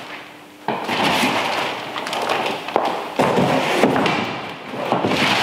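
Clear plastic wrapping crinkling and rustling while cardboard packaging is handled, with a few thuds and sharp taps. The noise starts sharply about a second in and again about three seconds in.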